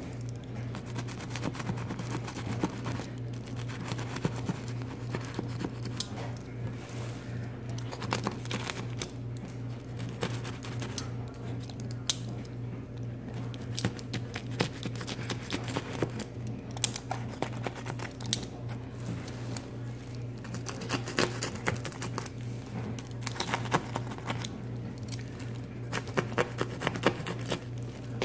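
Craft knife cutting and scraping through hardened paper clay and the paper beneath it: a run of small crackling scrapes and clicks, busiest near the end, over a steady low hum.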